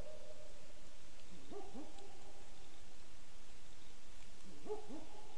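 An owl calling at night: two-note hoots, twice, about three seconds apart.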